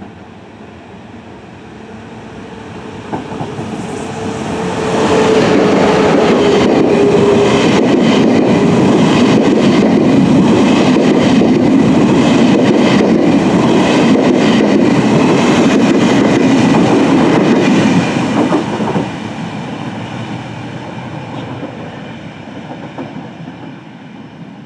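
An ÖBB Railjet hauled by a class 1116 Taurus electric locomotive passes by. It grows louder over the first five seconds, with a steady whine early in the pass-by. The coaches then go by with a loud rumble and a clatter of wheels over the rail joints, fading away after about eighteen seconds.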